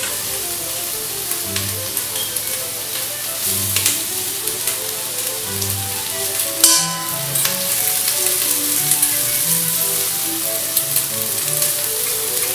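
Beef cubes sizzling as they sear in a hot frying pan, turned over with metal tongs, with a sharp clack about two-thirds of the way through.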